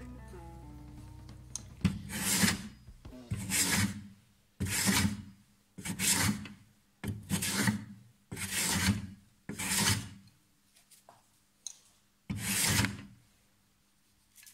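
Freshly sharpened old hand plane taking shavings off a softwood board: eight strokes about a second apart, each a short rasping hiss of the blade cutting, with a longer pause before the last one near the end.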